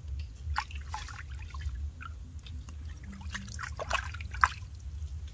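Water being scooped up by hand and splashed and trickled over a small animal in a basin. There are two bouts of splashing, about half a second in and around four seconds in, with dripping between.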